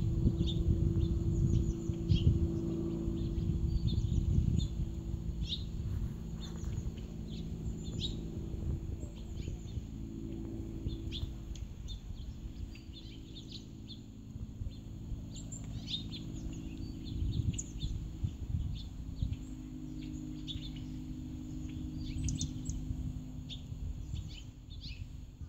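Small songbirds chirping: short, high calls scattered all through, over a low steady hum.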